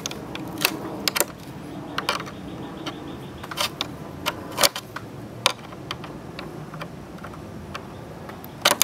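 Stainless worm-drive hose clamp being tightened with a flathead screwdriver: irregular sharp clicks, roughly one or two a second, as the screw turns against the band.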